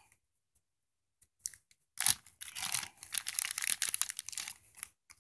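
Clear plastic Ziploc bag crinkling and rustling as it is handled in the fingers, starting about two seconds in and going on for about three seconds in irregular crackles.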